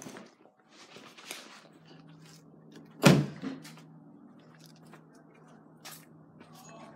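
A door shut with a single loud thump about three seconds in, among handling and footstep noises, over a steady low hum.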